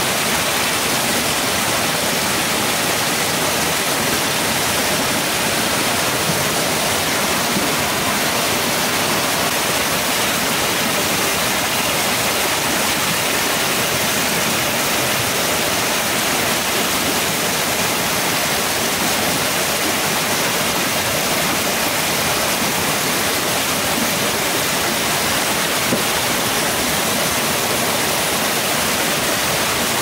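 Steady rushing noise of water, loud and unbroken, with no separate splashes or drops standing out.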